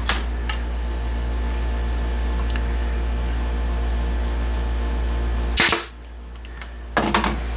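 Pneumatic nail gun firing nails into wood: a sharp shot about five and a half seconds in and a quick couple more near the end, over a steady low hum.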